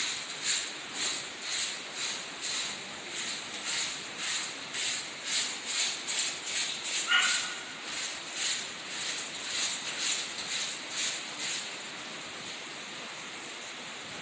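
Dry, rhythmic swishing strokes of a hand tool worked along a plastered ceiling edge, about two strokes a second, stopping near the end. A single short squeak comes about halfway through.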